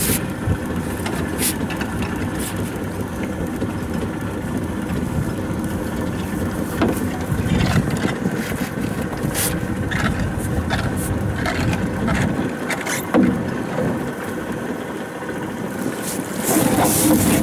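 Long-handled rake being worked over the side of a small boat to drag up mussels: scattered sharp knocks of the pole against the boat. Near the end comes a louder rush of water splashing as the rake is lifted out. Steady wind and water noise runs underneath.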